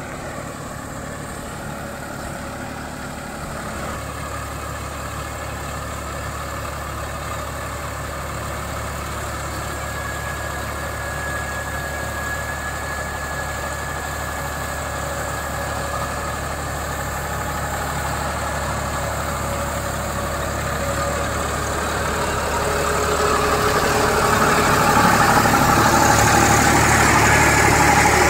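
Massey Ferguson 246 4WD tractor's diesel engine running steadily under load while driving a rotavator through wet paddy mud. It grows louder over the last few seconds, with a rising churning hiss from the rotavator blades in the mud.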